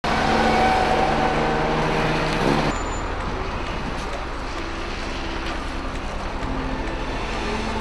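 Street traffic: vehicle engines running close by. The nearer engine's steady note stops abruptly a little under three seconds in, leaving a steady traffic rumble.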